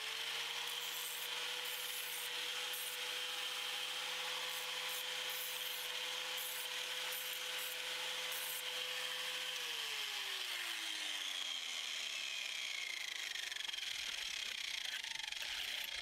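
Angle grinder running at steady speed, its disc grinding burrs off the cut edges of galvanized steel profile with a steady rasping hiss. About ten seconds in it is switched off and its whine falls away over the next few seconds.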